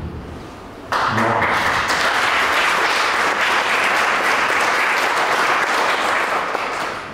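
Audience applauding, breaking out suddenly about a second in as a dense, steady clapping and dying away near the end.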